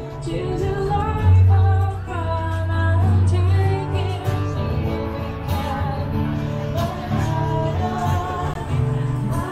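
A song playing loudly: a singer's voice gliding over a heavy, held bass line.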